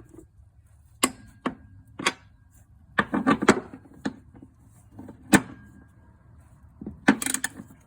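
Click-type torque wrench on a rear shock absorber's mounting bolts, set to 33 ft-lb: single sharp clicks and a few short runs of quick ratchet clicks.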